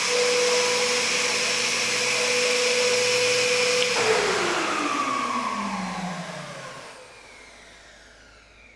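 Kärcher WD3 wet/dry vacuum cleaner running with a steady motor whine and rushing air. About four seconds in, it is switched off and the motor winds down, its pitch falling as it fades.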